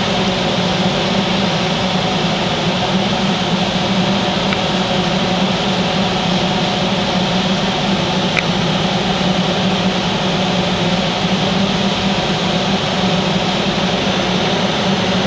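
Steady mechanical drone heard inside a truck cab, with a strong low hum that holds even and unchanging, like an engine or climate unit running at idle.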